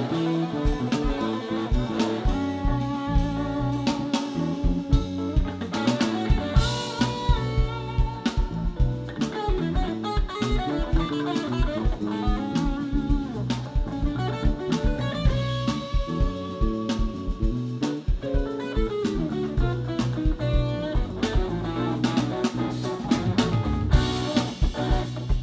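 Live rock band playing an instrumental passage: electric guitar and bass over a drum kit, with keyboards.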